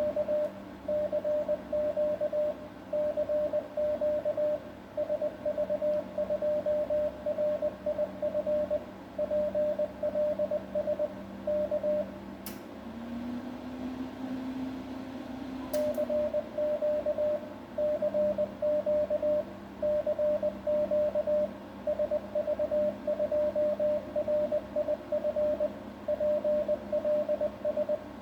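Morse code sent in CW mode, heard as the sidetone: a single steady tone keyed on and off in dots and dashes. It pauses for about four seconds midway, with a sharp click at the start and end of the pause, over a low steady hum.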